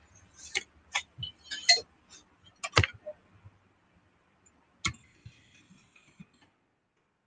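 A string of irregular sharp clicks and taps close to the microphone, the two loudest about three and five seconds in.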